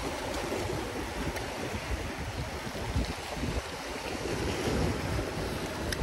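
Small waves surging and washing over rocks and shallow water, with wind buffeting the microphone in uneven gusts.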